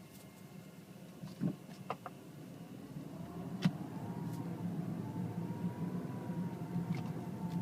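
A BMW car making an unexplained noise: a few light clicks and a sharper click, then, about three seconds in, a steady low hum sets in, with a faint whine above it that rises and falls slowly.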